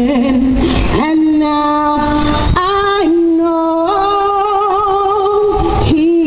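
A woman singing a worship song into a handheld microphone, amplified through a PA loudspeaker. She holds long notes with a slight vibrato, moving to a higher note about a second in and again near the middle.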